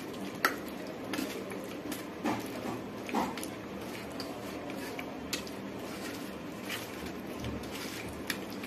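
Chicken pieces being mixed by hand in a wet yogurt-and-spice marinade on a stainless steel plate: soft squishing with scattered light clicks and taps of meat and fingers against the metal, one sharper click about half a second in.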